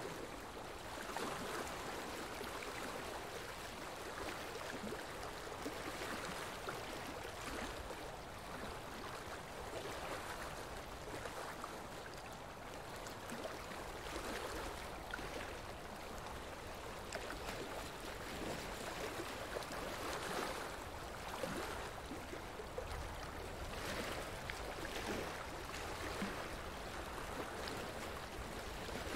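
Running water, a steady babbling that gently swells and eases, with no music or voice over it.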